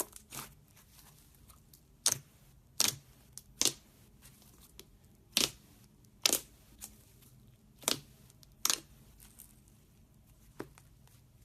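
Slime being worked by hand, giving about nine short, sharp crackling pops at irregular intervals of roughly a second.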